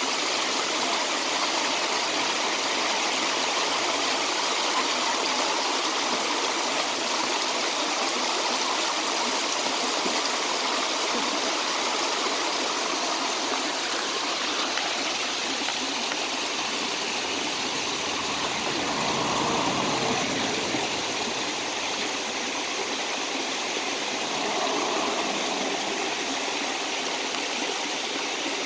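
Shallow creek rushing over bedrock ledges and small cascades: a steady, full hiss of running water.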